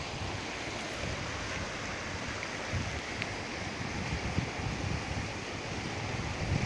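Wind buffeting the microphone: a steady rushing noise with uneven low gusts, and a couple of faint ticks.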